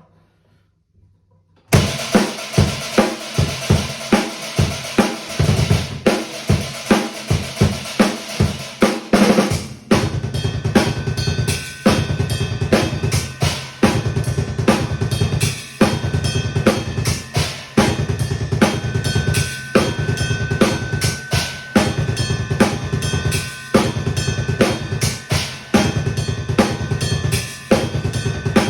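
Acoustic drum kit played as a sound check: kick drum, snare and cymbals in a steady beat. It starts about a second and a half in and gets fuller and busier from about ten seconds in.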